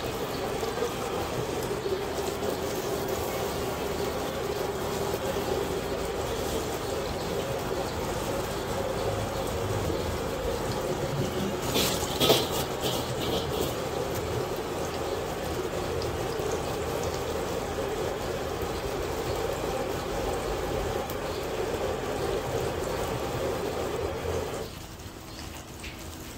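Whole gurame fish deep-frying in a wok of hot oil: a steady bubbling sizzle. A brief sharp clatter about halfway through, and the sizzle drops quieter in the last second or two.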